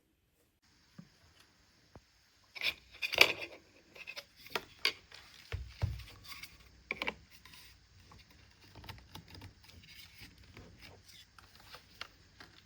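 Handling noises: a run of clicks, knocks and scraping, loudest about three seconds in and growing sparser toward the end.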